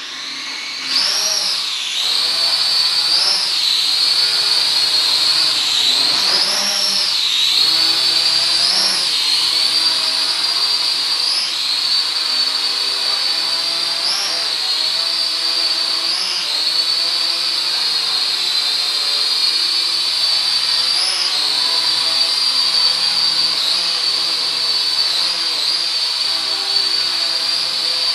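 Zero-X Pulse toy quadcopter's motors and propellers spinning up and lifting off, then a steady high whine in flight. The pitch swoops up briefly every few seconds as the throttle is changed.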